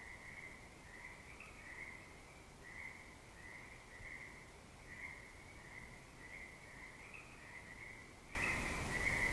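Crickets chirping in a steady, pulsing high trill, with a burst of loud rushing noise starting near the end.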